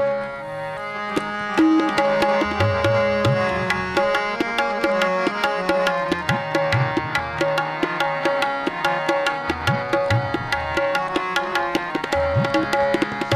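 Instrumental interlude of a Hindi devotional song (bhajan): tabla playing a quick, steady beat under held melody notes, with no singing.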